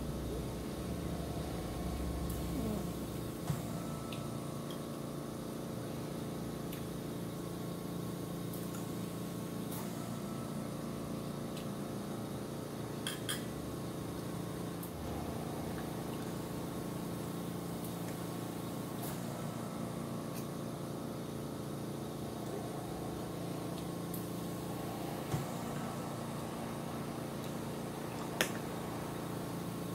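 Eating sounds: chewing a mouthful of creamy penne pasta salad, with a few sharp clinks of a metal fork against the bowl, over a steady hum.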